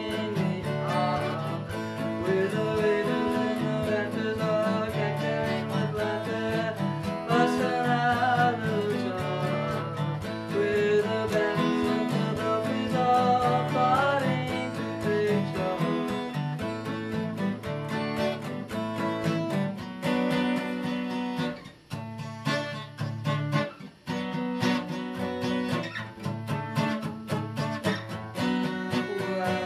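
Two acoustic guitars playing a folk song together, a bending melody line over steady chords in the first half. From about twenty seconds in, sharper strummed chord strokes take over, with two short drops in level.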